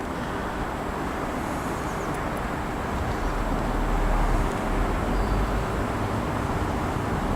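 Class 333 electric multiple unit moving through the station, a steady rumble that turns deeper and a little louder about three to five seconds in.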